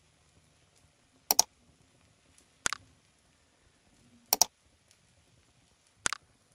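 Mouse-click sound effects from a subscribe-button animation: four sharp clicks, each a quick double click, about a second and a half apart.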